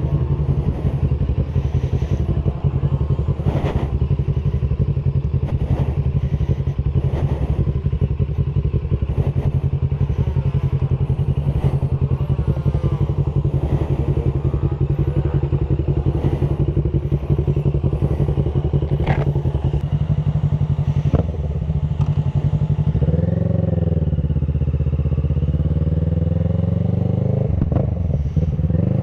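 Motorcycle engine and exhaust running steadily under way, with a fast even exhaust pulse. About two-thirds through there is a sharp knock, then the engine speed drops and climbs again.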